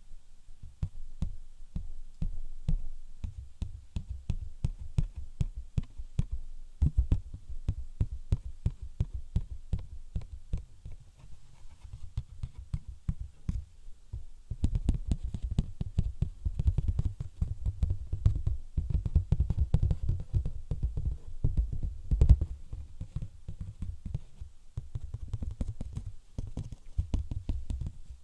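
Rapid, irregular ASMR tapping by hand on an object, close to the microphone: a dense run of deep thuds with lighter clicks on top. It grows louder and busier from about halfway through.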